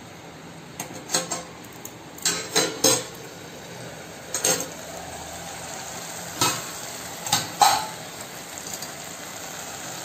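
Sharp metal clinks and clatters of a steel plate lid and spoon against a kadhai, about eight knocks spread irregularly, the loudest a little past the middle, over the steady sizzle of onion-tomato masala cooking down in the pan.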